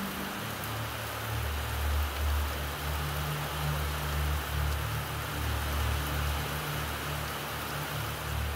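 Steady rain falling, an even hiss, with a low steady hum underneath.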